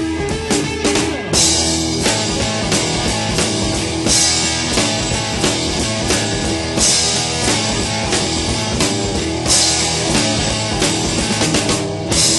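Blues-rock instrumental recording: electric guitar with bass and a full drum kit playing together, crash cymbals hitting about a second in and then every two to three seconds.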